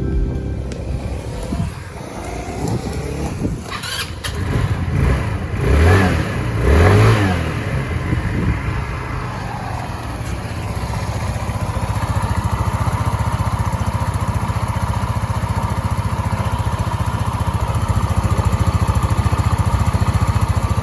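Gilera Piccola 150 scooter's single-cylinder, air-cooled four-stroke 150 cc engine running. It is blipped twice, about six and seven seconds in, then settles into a steady, evenly pulsing idle.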